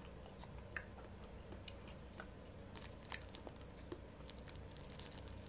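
Quiet eating sounds: wooden chopsticks mixing and lifting sticky, saucy black-bean noodles in a clay pot, with many small soft clicks and wet ticks, over a low steady hum.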